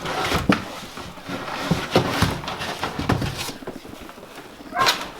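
Brake kit parts and their packaging being handled during unboxing: rustling with irregular knocks and clicks.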